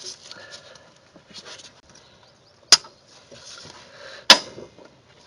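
Two sharp metallic clacks about a second and a half apart, with light scraping and rattling between them, as drum brake springs and hardware are worked into place with tools.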